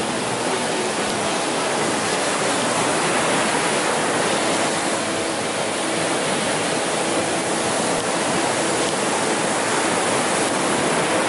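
Ocean surf breaking and washing up a sandy beach: a steady, loud rush of waves.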